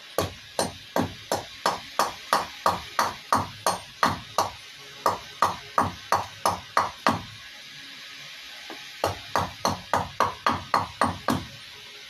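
Rapid, even blows of a hand carving tool on a wooden kuksa blank held on a chopping stump, about three a second, each a sharp knock with a short ring. About twenty blows come in two runs, then a pause of nearly two seconds, then eight more.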